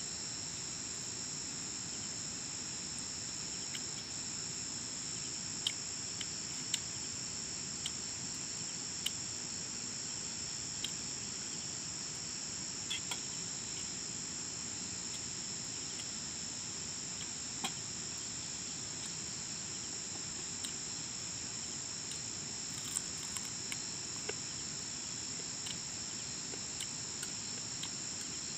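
Steady, high-pitched chorus of insects, two shrill tones held without a break. Scattered light clicks of eating from a metal plate break in now and then.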